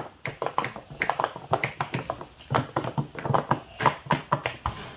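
Silicone pop-it fidget toy bubbles being pressed as fast as possible, a quick, irregular run of small pops several a second.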